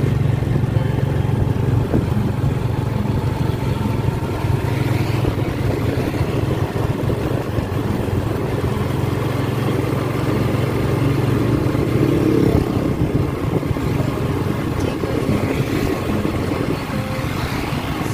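Motorcycle engine running while riding, heard from the rider's seat: a steady low engine hum under continuous road and wind rush.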